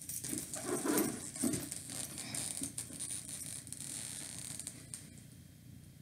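A handbag's small keys and hardware being handled: irregular light clicks and rustles, busiest in the first couple of seconds, then fainter.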